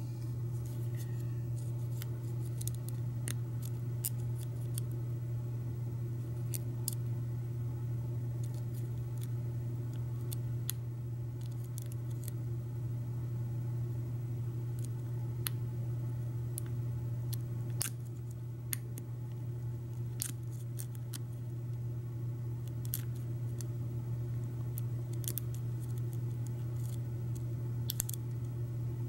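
Lock pick clicking against the pin tumblers inside an American 1100 padlock as it is single-pin picked under tension: small metallic clicks at irregular intervals, over a steady low hum.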